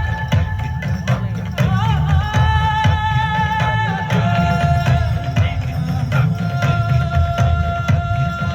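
Indian-style music from a light show's soundtrack: long held melodic notes that step down in pitch about halfway through, over dense, steady low drumming.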